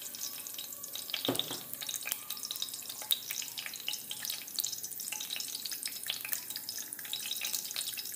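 Hot oil sizzling in a wok with mustard seeds just added for a tempering, a steady hiss dotted with many small crackling pops, and one light knock about a second in.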